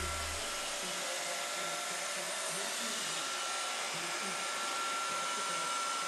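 iRobot Roomba 530 robot vacuum running across a wooden floor: a steady whir of its vacuum motor and brushes, with a thin high whine held throughout.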